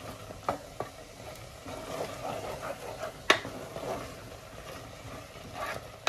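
Wooden spatula stirring a thick mixture of mutton and chana dal in an aluminium pressure cooker, scraping and knocking against the pot as it is dry-roasted, with sizzling underneath. A sharp knock of the spatula on the pot about three seconds in is the loudest sound.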